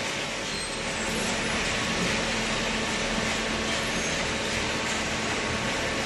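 Hydraulic corrugated-cardboard baler running, a steady mechanical noise with a faint hum underneath.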